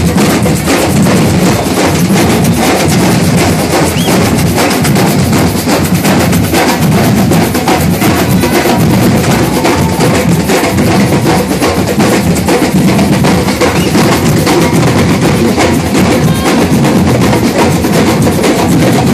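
A large group of drums, tall hand drums among them, played together in a loud, dense, unbroken rhythm.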